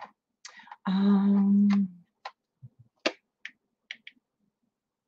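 A woman humming one steady held note for about a second, followed by a few scattered light clicks.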